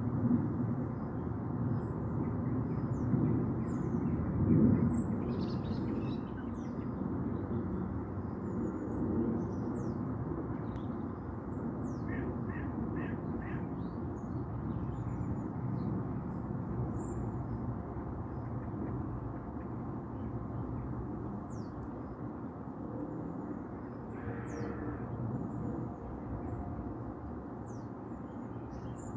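Outdoor garden ambience: a steady low rumble that slowly fades, with birds chirping high now and then and a quick run of four calls about halfway through.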